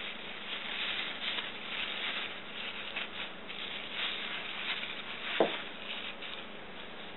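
A thin plastic cooking bag crinkling and rustling as hands pull it open and peel it off a baked cake, with one sharper click about five seconds in.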